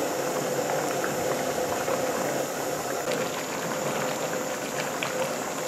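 Rice boiling hard in a large aluminium pot, a steady, even bubbling of starchy water at a full boil.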